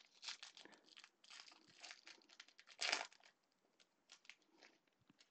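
Foil wrapper of a baseball card pack being torn open and crinkled, in irregular faint crackles with the loudest burst about three seconds in.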